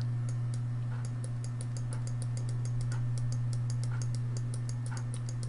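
Rapid, light, evenly spaced clicking, several clicks a second, from a computer mouse or keyboard as a document is scrolled, over a steady low electrical hum.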